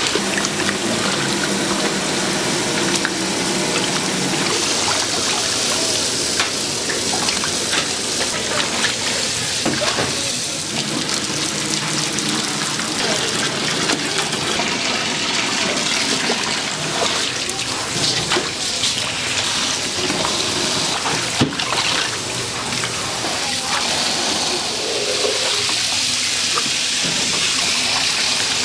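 Tap water running steadily and splashing in a sink as pork intestines are washed under it, with a few sharp knocks, the clearest about twenty seconds in.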